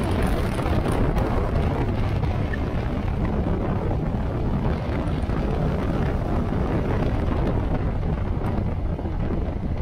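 Motorcycle on the move: steady wind rushing over the microphone, with a low drone from the bike underneath.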